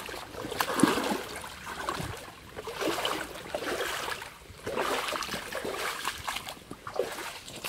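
Shallow river water splashing and sloshing in uneven surges about every second or so, from someone wading through it.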